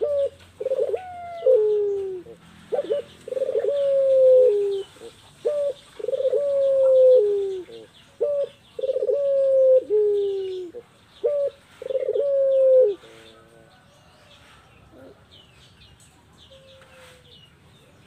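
Female puter pelung, a white ringneck (Barbary) dove, cooing repeatedly, about six long drawn-out coos. Each is a short opening note followed by a long held note that steps down and falls in pitch. The cooing stops about two-thirds of the way through, leaving faint chirps of other birds.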